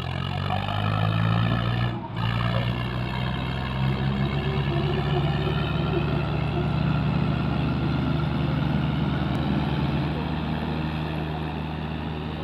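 Diesel engines of a Swaraj tractor and a John Deere tractor running flat out and lugging under heavy load as they pull against each other in a tractor tug-of-war. The note dips briefly about two seconds in and sags a little lower about ten seconds in.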